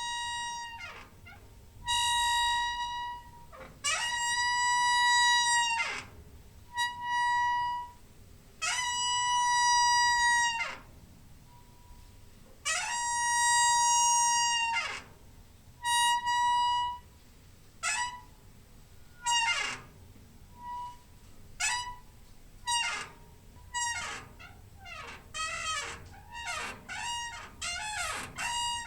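A squeaking door hinge. It gives a series of long, high, tonal squeaks, each a second or two long and often falling in pitch at the end, then shorter, quicker squeaks in the second half.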